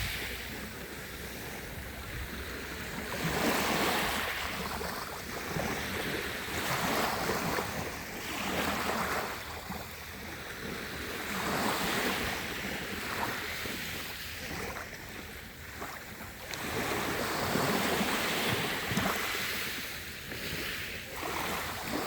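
Sea waves washing in, a rushing hiss that swells and fades every three to five seconds.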